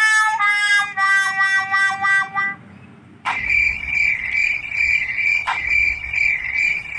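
A short run of high, held notes stepping in pitch, then from about three seconds in a steady, pulsing chirring like a frog or insect call.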